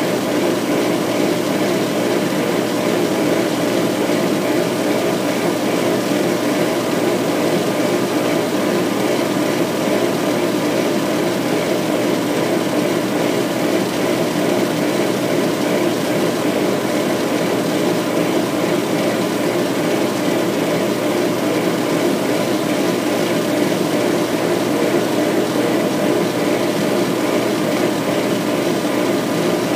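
Laser engraver running a raster etch: a steady mechanical whir and hum from the machine with several faint steady tones, unchanging throughout.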